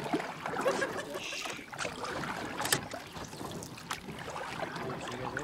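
Sun Dolphin pedal boat under way: the paddle wheel churning and splashing water, with a couple of sharp knocks from the boat near the middle.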